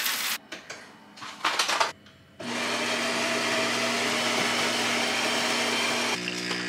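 A Jura E6 automatic espresso machine's built-in grinder grinds beans steadily from about two seconds in. Near the end it gives way to the lower hum of the brewing pump. A brief clatter comes before the grinding.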